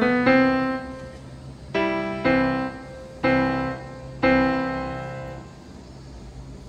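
Background piano music: slow notes and chords struck about once a second, each ringing out and dying away. The music fades out about five seconds in, leaving a faint steady low hum.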